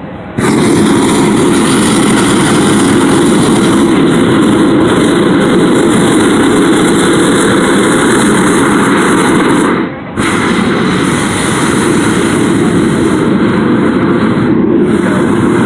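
Hot air balloon propane burner firing into the envelope during inflation: a loud, steady blast that starts just after the opening, cuts out briefly about ten seconds in, then fires again.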